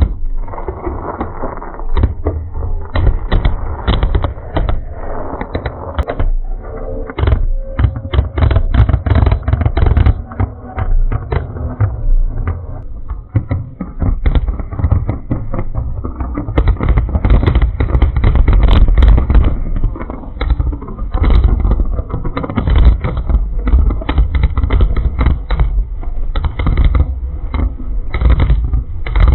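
Fireworks going off: dense runs of sharp bangs and crackling, with a low rumble beneath them.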